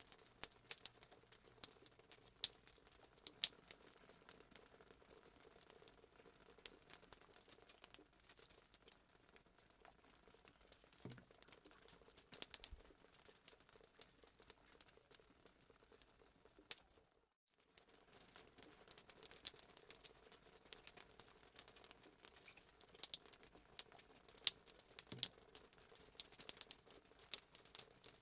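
Fireplace sound effect: a wood fire crackling and popping in quick irregular snaps over a soft hiss. It drops out completely for a split second about two-thirds of the way through, then resumes.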